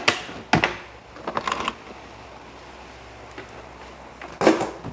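Clicks and knocks from handling an induction rice cooker, a few in the first second and a half and one louder knock near the end.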